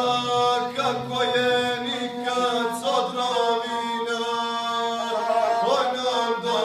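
A guslar sings a Serbian epic song in the traditional chanted style, accompanying himself on the gusle, a single-string bowed folk fiddle. The voice holds long notes with short slides between them, doubled by the bowed string.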